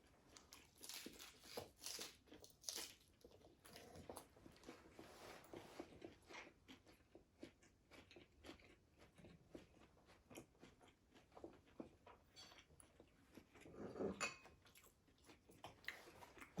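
Faint, close-up chewing and crunching of crispy fried food, with irregular crackly bites throughout and a louder crunch about fourteen seconds in.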